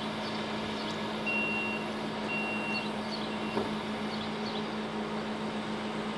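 PESA SA135 diesel railbus standing with its engine idling, a steady low hum. A high electronic beep sounds about a second in, again a second later, then once more briefly.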